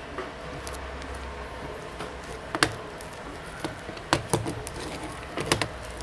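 Sharp clicks and knocks of small electronic parts and a solder spool being handled and set down on a workbench: the loudest about two and a half seconds in, then a cluster around four seconds and more near the end, over a steady low hum.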